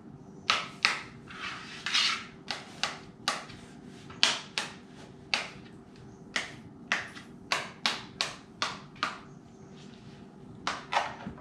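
Kitchen knife chopping soft canned yams (sweet potatoes) against a plastic cutting board: a string of sharp knocks, irregular at two or three a second, with a short pause near the end.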